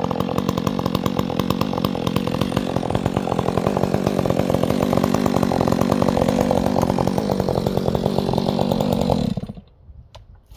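Chainsaw engine running steadily, then shutting off abruptly about nine seconds in, followed by a few faint clicks.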